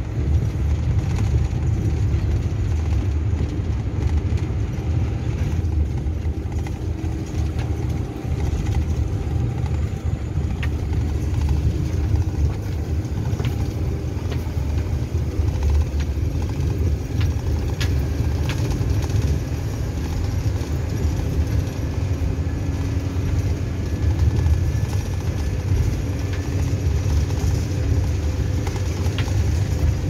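Car driving on a rough dirt road, heard from inside the cabin: a steady low rumble of engine and tyres, with a few light ticks and rattles.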